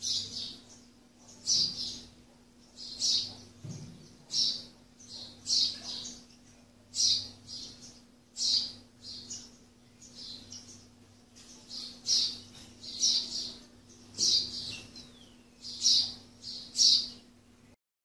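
A sparrow chirping over and over, short high chirps about once a second, some coming in quick pairs.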